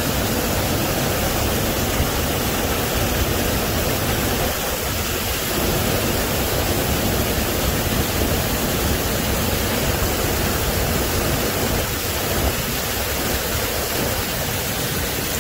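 Small waterfall cascading over rocks: a steady rush of falling water.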